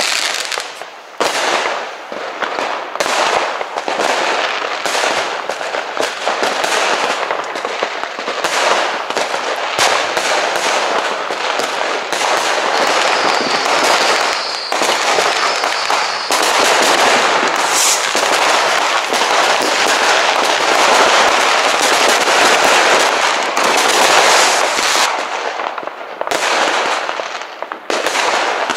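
Fireworks and firecrackers going off in a dense, continuous barrage of bangs and crackling, with a faint high whistle briefly around the middle.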